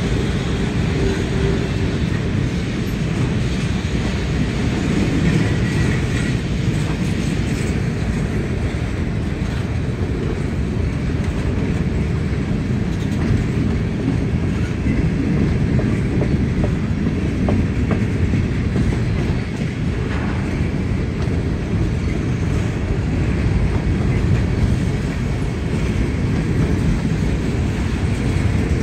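Freight train cars rolling past: a steady rumble of steel wheels on the rails as flatcars, boxcars and covered hoppers go by.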